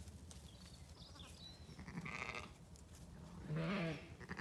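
A Zwartbles sheep bleats once, a short wavering call about three and a half seconds in.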